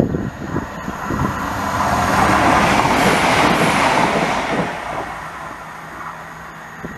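A Chiltern Railways diesel multiple unit passes through the station at speed. Its rushing noise swells to a peak about three seconds in and then fades, with a steady low engine note under it.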